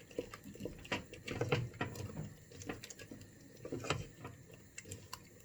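A utensil stirring a thickening curry sauce in a pan, with irregular clicks and knocks against the pan.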